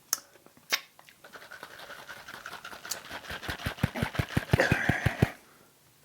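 Aerosol can of whipped cream spraying in a long hiss after a couple of clicks. It sputters into a rapid run of pops, about eight a second, near the end, then cuts off.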